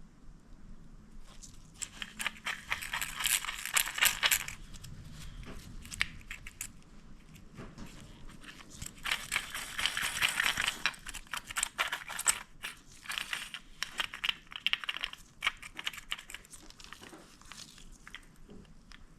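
Small metal transmission parts clinking and rattling against each other as they are handled, in two busy spells of clatter with scattered clicks between and after.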